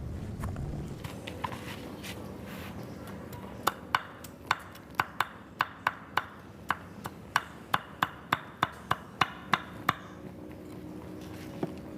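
A run of sharp knocks, about three a second, starting a few seconds in and stopping about two seconds before the end.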